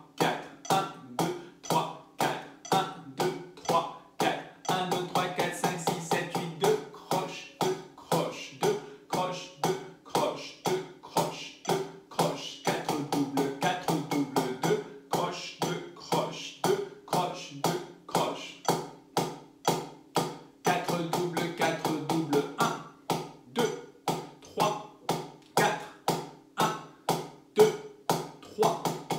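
Drumsticks playing a steady stream of alternating strokes, a drum subdivision exercise at 60 beats per minute, with soft vocalised counting alongside.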